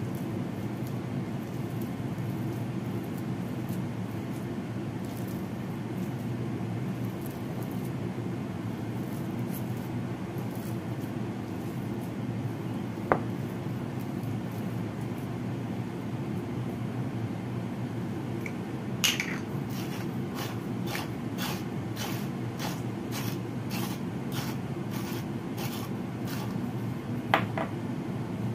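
A silicone spatula mashing and stirring pumpkin and minced meat in a ceramic bowl, over a steady low background hum. In the second half the spatula makes short, soft strokes, about two a second, with a sharp click or two against the bowl.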